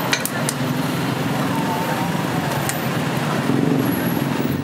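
Street traffic noise with a steady engine hum, and a few sharp clicks near the start.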